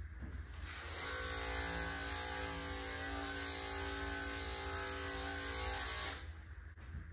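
Electric dog-grooming clippers running steadily as they trim a cockapoo's coat, starting about a second in and switching off abruptly near the end.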